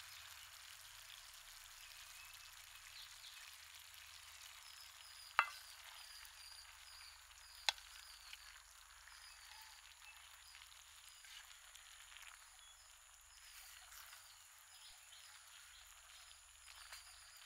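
Faint sizzling from a wok of stir-fried chicken and vegetables as boiled rice noodles are tipped in from an aluminium colander and turned with a wooden spoon. There are two sharp knocks of utensil against the pan, about five and a half and nearly eight seconds in.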